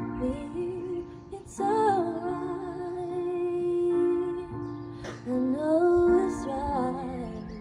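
A woman singing a slow song solo, in long held phrases with a short break between them.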